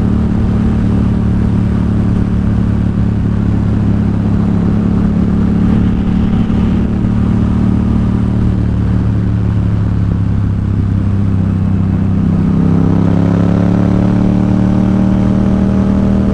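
Yamaha XSR700's 689 cc parallel-twin engine running at a steady cruise through a Two Brothers SR1 aftermarket exhaust, with wind rush around it. Over the last few seconds the engine note rises gradually as the bike picks up speed.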